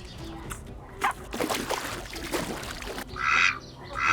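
Ducks quacking: two loud quacks near the end, after a couple of seconds of water sloshing and splashing.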